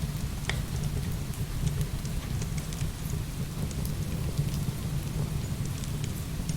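Heavy rain pouring steadily over a deep low rumble, with scattered sharp crackles and pops of burning firewood.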